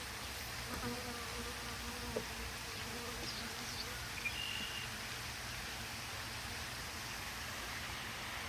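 Italian honey bees buzzing around an open hive, a steady hum of many bees, with one bee's buzz close by for a few seconds shortly after the start.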